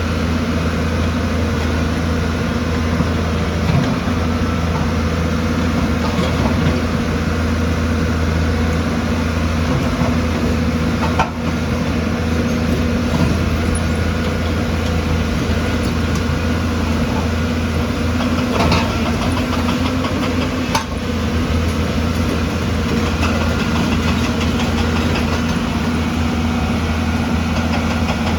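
Heavy construction machine's diesel engine running steadily at a constant speed, with three sharp knocks well apart in the middle.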